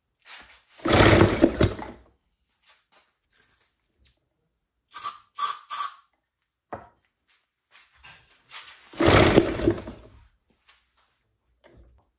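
Homemade 3D-printed single-cylinder four-stroke engine cranked over in two bursts of about a second each. In between come three short hisses of aerosol starter fluid being sprayed into it.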